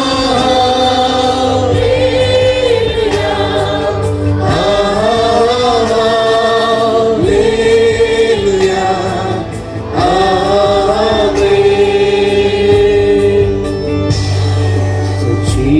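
A choir sings a Kannada Christian worship song with musical accompaniment, the sung lines held and bending in pitch.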